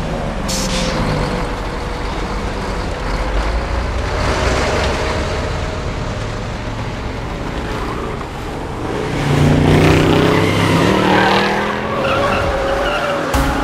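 Movie chase sound mix of cars and a heavy truck driving fast through city streets, engines running with tyres skidding. The engine noise swells to its loudest about two-thirds of the way through.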